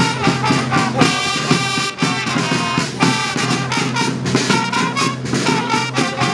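Fanfare corps playing a tune: a row of fanfare trumpets sounding together over marching drums keeping a steady beat.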